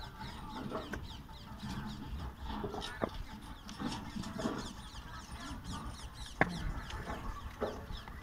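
Bricks knocking as they are set down and tapped into place on a mortar bed, with a sharp clack about six seconds in, over constant chirping and clucking of birds and fowl in the background.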